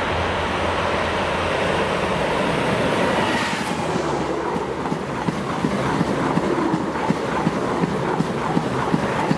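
EP20 dual-system electric locomotive and its Talgo 250 'Strizh' coaches passing at speed: a steady rush of train noise that swells as the locomotive goes by a few seconds in, then a run of rhythmic wheel clicks on the rails as the coaches follow.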